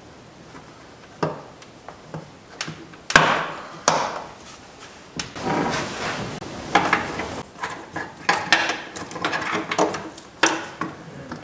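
Irregular clicks, knocks and rattles of hands and tools working on the parts inside a Volkswagen Beetle's bare steel inner door. The loudest knock comes about three seconds in, and the clicking gets busier in the second half.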